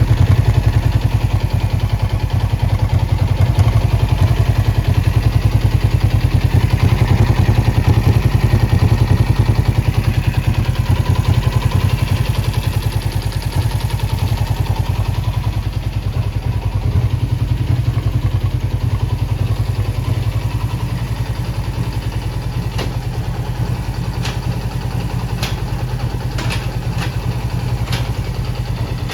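Suzuki GSX400E's air-cooled parallel-twin engine running steadily, easing slightly quieter over the second half, with a few sharp clicks near the end. The seller reports an abnormal noise from the engine's bottom end that needs repair.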